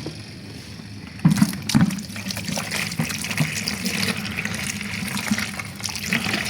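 Water draining out of a semi-automatic washing machine, starting suddenly about a second in and then running steadily.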